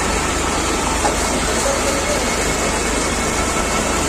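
Tractor engine running steadily, driving a PTO-powered centrifugal water pump, with a strong stream of water gushing from the outlet pipe into a tank.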